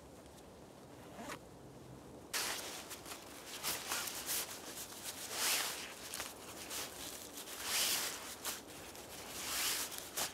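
A heavy canvas tarp being spread out and folded over dry fallen leaves: rustling and swishing that swells in several long strokes, starting abruptly a couple of seconds in after a quiet stretch.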